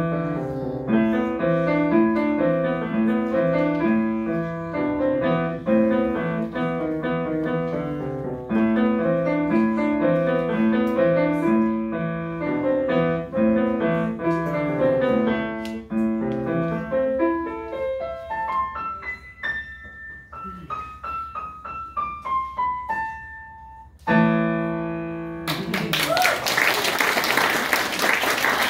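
Grand piano played solo: a flowing passage of notes and chords, then a line of single notes stepping down in pitch, ending on a held final chord. Applause starts a second or so after the last chord.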